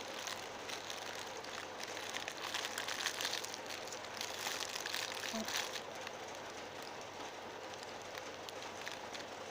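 Crinkling and rustling of a homemade paper squishy being squeezed and handled, a dense crackle that is busiest in the first half and thins out later.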